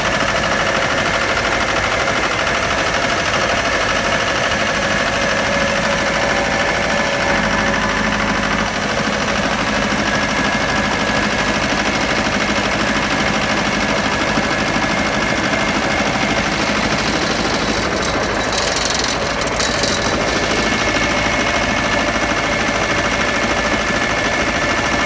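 Pasquali 996E tractor's engine running steadily while the tractor drives along a paved road.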